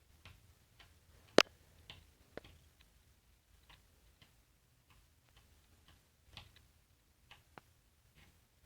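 Irregular light taps and clicks of claws on a hard floor as a sleeping pet's paws twitch in a dream, with one much sharper tap about a second and a half in.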